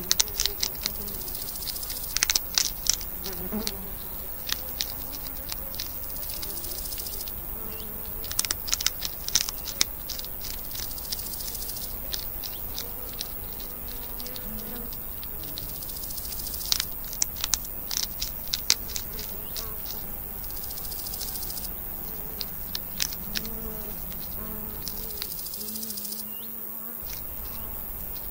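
Wild baby hedgehogs crunching and chewing hard food, in bursts of rapid clicks. A high buzz comes and goes behind them.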